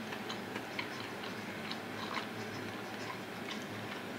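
Close-up eating sounds: irregular small wet clicks of chewing and mouth noises, several a second, over a steady low hum.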